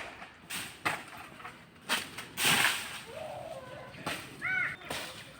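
Sharp chopping strikes of a blade into a coconut palm trunk, about seven irregular blows half a second to a second apart, one near the middle followed by a longer rasping noise.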